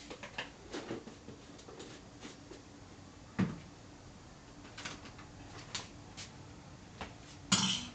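Scattered light clicks and knocks of kitchen things being handled, with a louder knock about three and a half seconds in and a louder clatter near the end, over a faint steady hum.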